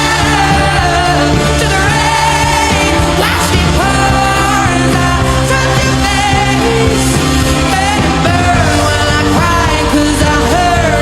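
A pop song performed live: a singer's voice holding wavering, vibrato notes over a full band accompaniment with sustained bass notes.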